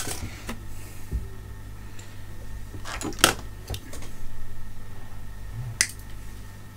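Handling noise on an electronics workbench: a few light clicks and knocks, the sharpest about three seconds in, over a steady low hum.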